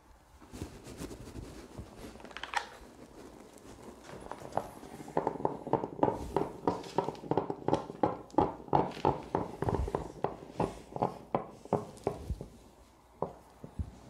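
Hand spray bottle pumped over and over, about three squirts a second for several seconds, misting water onto a drink can to build up condensation droplets. A few handling knocks come before the spraying.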